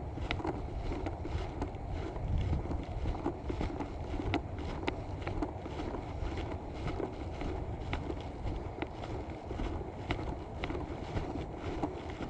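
Wind rumbling on the microphone, over sharp clicks about every half second in a walking rhythm, like footsteps on a trail.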